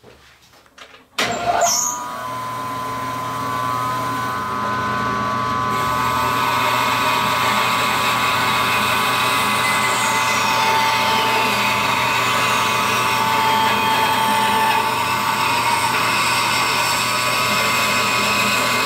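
A Rikon 10-326 14-inch bandsaw is switched on about a second in and spins up to a steady run with a constant whine. This is a test run with a freshly fitted 3/16-inch blade and newly set guide bearings, and the blade is cutting a small block of wood.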